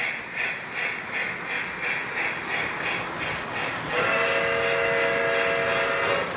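Model steam locomotive's sound system chuffing in a steady rhythm, about two to three chuffs a second; about four seconds in, its steam whistle sounds and holds for about two seconds.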